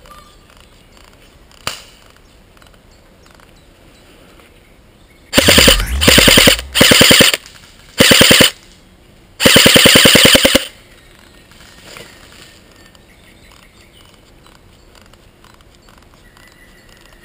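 G&G CM16 Raider DST airsoft electric rifle firing on full auto: five short bursts of rapid, evenly spaced shots in quick succession, the last about a second long.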